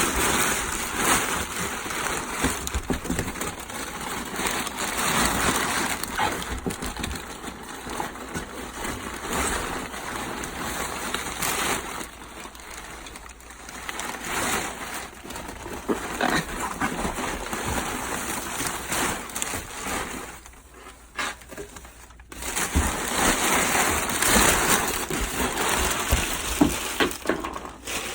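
Packaging rustling and crinkling with scattered light knocks as metal motorcycle crash cages are pulled out of their wrapping, quieter for a while near the middle and again about two-thirds of the way in.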